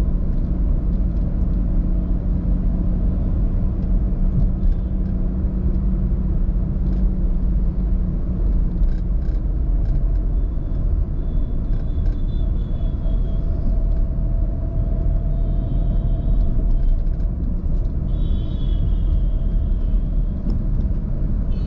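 Car driving along a road: a steady low rumble of engine and tyres, with a low hum that fades about eight seconds in. Faint high-pitched tones come and go in the second half.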